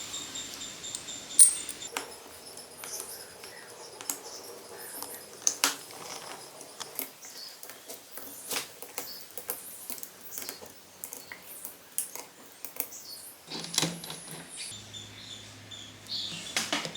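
Small metal engine parts and hand tools clicking, tapping and clinking on a workbench in irregular strokes, some with a brief metallic ring; the sharpest click comes about a second and a half in.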